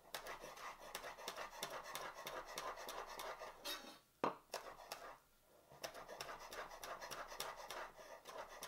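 Santoku knife rapidly chopping chives and parsley on a wooden cutting board, many quick taps a second, pausing for a second or so about halfway before resuming.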